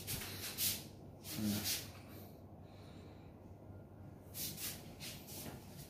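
A person breathing and sniffing close to the phone's microphone: several short breaths, with a quiet stretch in the middle.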